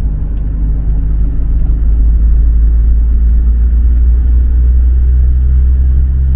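Volkswagen Kombi van's engine and road noise heard from inside the cabin while driving, a steady low drone that grows louder over the first couple of seconds, then holds.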